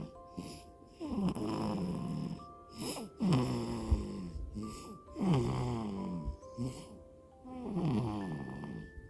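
Newborn baby snoring: four nasal, snoring breaths about two seconds apart, each falling in pitch, with a soft melody of steady notes playing underneath.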